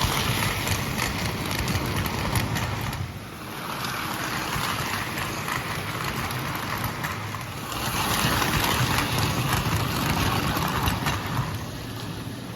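Gilbert American Flyer S-gauge train of die-cast cars running on the track, with a steady clickety-clack of metal wheels over the rail joints. It grows louder and softer three times as the cars pass by.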